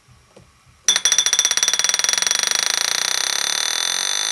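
An alarm bell ringing loudly with a rapid, even rattle of strokes. It starts suddenly about a second in after a faint click, then rings steadily on one high pitch.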